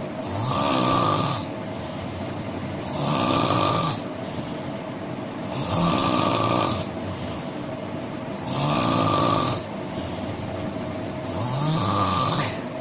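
A person snoring: five loud snores at an even pace, one about every three seconds, each lasting just over a second, over a steady background hum.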